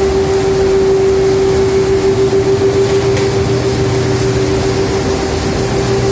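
A row of fibre-opening machines in a textile-waste recycling mill running, with their electric motors and duct blower fans: a loud, steady machine drone with a constant mid-pitched hum on top and a lower hum that grows stronger about halfway through.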